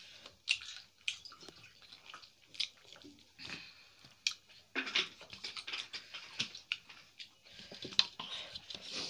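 People chewing rice and curry eaten by hand, with irregular sharp mouth clicks and fingers mixing food on plates.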